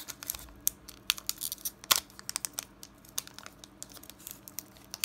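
Foil wrapper of a Pokémon TCG booster pack crinkling and tearing as it is worked open by hand. The crackles are sharp and irregular, loudest right at the start and again about two seconds in.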